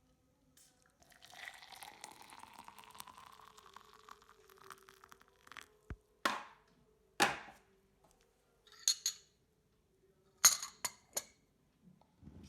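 Liquid poured into a glass, its pitch rising as the glass fills, followed by a series of sharp glassware clinks.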